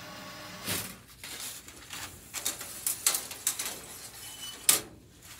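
Paper towel rubbing and scrubbing over a stainless-steel work surface as it is wiped down with disinfectant, in irregular scuffs and light knocks, with one sharp knock near the end.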